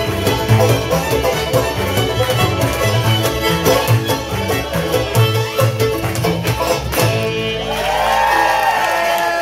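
Bluegrass band of fiddle, mandolins and upright bass playing a fast fiddle tune, which ends on a final stroke about seven seconds in. The last chord rings out, and whooping voices begin near the end.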